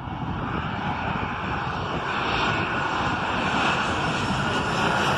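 Twin-engine jet airliner on approach, coming in low, its engine noise a broad, steady rush growing louder as it nears.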